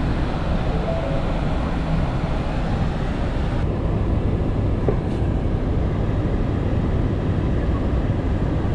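Ford 7.3-litre gas V8 idling in Park just after a cold start at about −17°, heard from inside the cab as a steady low rumble under the rush of the defroster fan.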